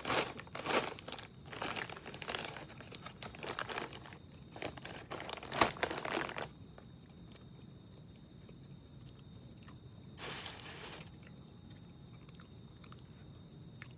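Doritos chip bag crinkling and rustling as a hand rummages inside it, the chips crunching against the foil, for about the first six seconds; then a brief rustle at about ten seconds.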